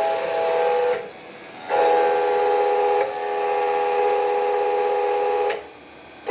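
A steady whistle-like tone made of several held pitches, starting and stopping abruptly: it cuts out about a second in, returns for about four seconds, then cuts out near the end.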